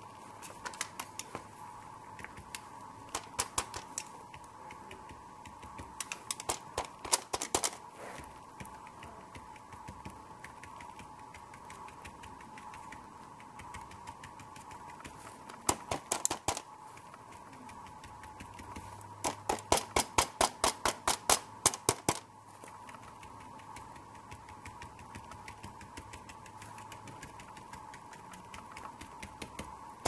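A stiff paintbrush tapped rapidly, stippling acrylic paint, in several short bursts of quick taps; the longest runs about three seconds past the middle. A faint steady hum lies underneath.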